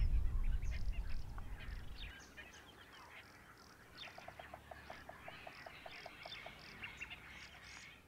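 Birds chirping and calling, many short high chirps and whistles, with a low sound fading out over the first two seconds and a run of short evenly spaced notes, about four a second, from about four seconds in.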